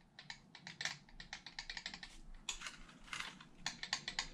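Quick, irregular light clicks and taps, in clusters, of fingers handling wiring, connectors and plastic parts on an RC car chassis.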